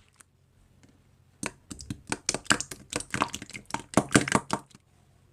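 Slime being pressed and squished by hand: a quick, irregular run of crisp clicks and pops for about three seconds, starting about a second and a half in.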